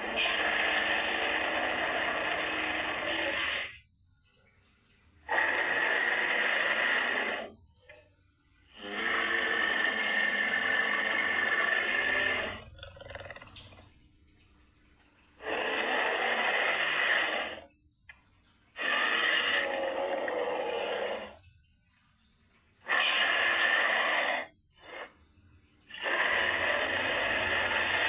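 Creature sound effect for a humanoid moray eel: rasping, roar-like calls in about seven bursts of two to four seconds each, separated by short silences.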